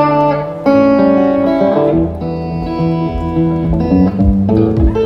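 Live solo guitar opening an instrumental rag, with plucked notes and chords ringing out. From about four seconds in, low thumps keep the beat.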